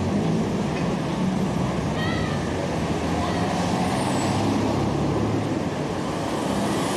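Street traffic noise with a vehicle engine idling steadily under it; a short high-pitched call about two seconds in.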